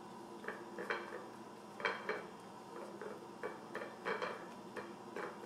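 Hands patting a paper towel down over rehydrated sweet potato slices on a ceramic plate: a run of soft, irregular taps, with the plate lightly knocking on the granite countertop.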